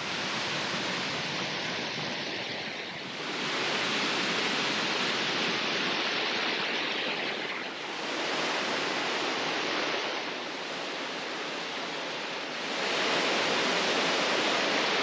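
Rushing water of a mountain stream or waterfall, a steady loud rush whose level shifts several times.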